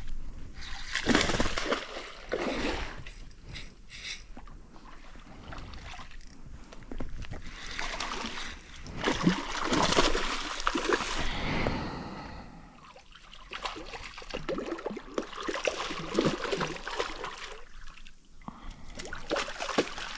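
Water splashing and sloshing in irregular bursts, some louder than others, about a second in and around the middle.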